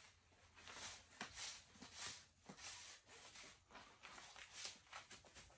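Green plastic screw-on lid being twisted onto a plastic jug filled with dry powder mix: a string of faint, short, irregular scraping rasps.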